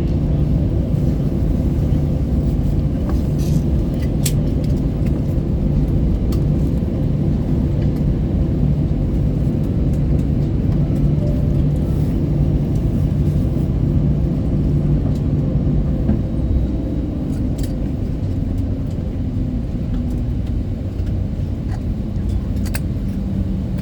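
Low, steady rumble inside an Airbus A320 cabin on the ground after landing. A steady hum runs under it and stops about sixteen seconds in, after which the rumble is a little quieter. Scattered light clicks are heard throughout.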